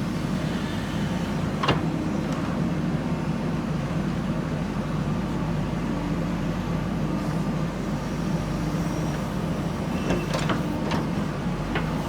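JCB backhoe loader's diesel engine running steadily, with a sharp metallic clank about two seconds in and a few more clanks near the end.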